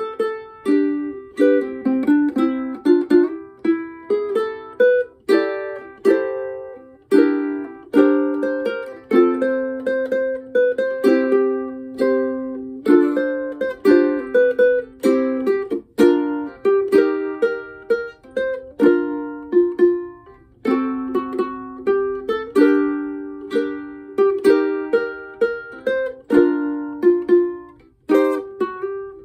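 Solo ukulele played fingerstyle: a plucked melody carried over chords, each note sharply picked and quickly decaying, in a steady flowing rhythm.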